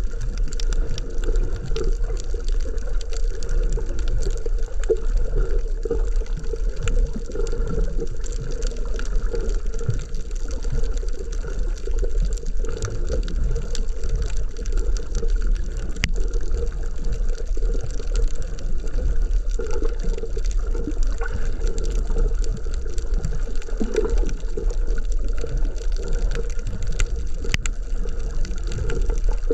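Underwater sound picked up through an action camera's waterproof housing: a steady, muffled wash of water with a strong low rumble and faint scattered clicks.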